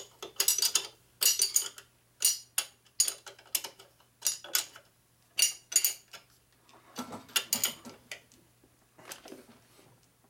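Socket ratchet clicking in short bursts, about one every half second to second, as nuts at the base of an engine cylinder are run down and tightened. A faint low hum runs underneath.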